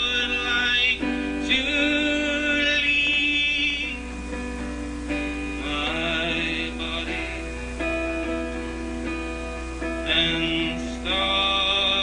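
Live folk performance: a man's voice singing long, wavering held notes in several phrases with short breaks, over a strummed acoustic guitar.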